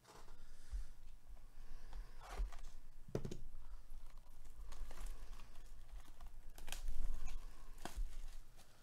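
A shrink-wrapped cardboard trading-card box handled with gloved hands: plastic wrap crinkling, with irregular taps and knocks, the strongest about three seconds in and again near the end.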